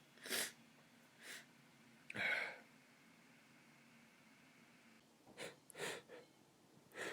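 A man sniffling and taking short, sharp breaths in, about seven quiet sniffs and gasps with a lull in the middle: the tickle and false starts of a stubborn sneeze that does not yet come.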